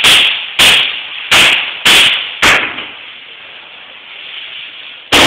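String of Neapolitan tricche-tracche firecrackers going off. Five sharp, loud bangs come a little over half a second apart, then after a gap of about two and a half seconds another bang sounds near the end.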